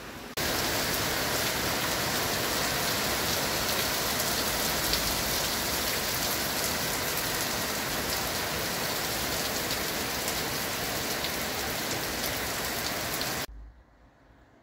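Heavy rain pouring down: a dense, steady hiss of downpour with individual drops ticking through it. It starts abruptly just after the beginning and cuts off abruptly near the end.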